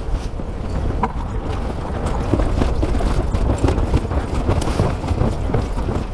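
Wind buffeting the microphone aboard a sailboat under way, with a run of short, irregular knocks and slaps from about two seconds in.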